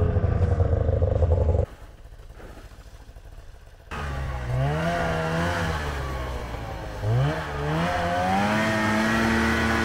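Arctic Cat 370 snowmobile engine, loud and steady for about the first second and a half, then much quieter for about two seconds. It comes back revving repeatedly, the pitch rising and falling, as the sled climbs a steep snowy slope, and holds a steady higher note near the end.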